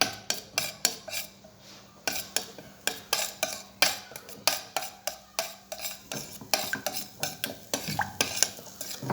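A spoon stirring ground cloves, cumin and olive oil in a small pot heating over the flame, clinking and scraping against the pot in quick repeated strokes, about two to three a second.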